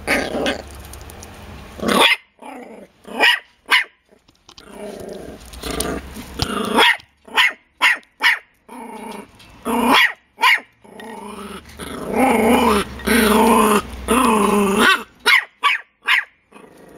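Jack Russell Terrier puppies barking in short, sharp yaps, with longer stretches of growling in the second half.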